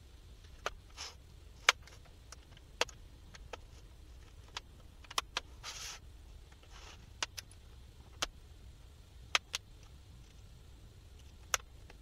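About a dozen sharp, irregularly spaced plastic clicks with a few short scrapes, as a guitar pick pries the MSI Thin 15 laptop's bottom cover away and its snap clips pop loose.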